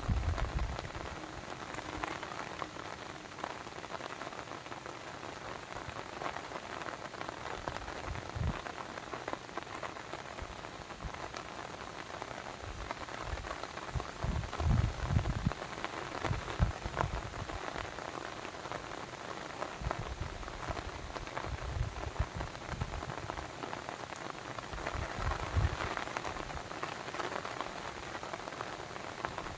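Steady water sound made of many small drops and splashes, with occasional low rumbles.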